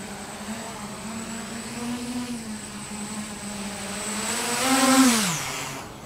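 A 7-inch FPV racing quadcopter's brushless motors whining steadily, growing louder to a peak about five seconds in. After the peak the pitch falls away.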